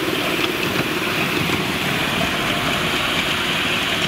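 Engine of a miniature-railway locomotive running steadily as it hauls a train of passenger cars along the track.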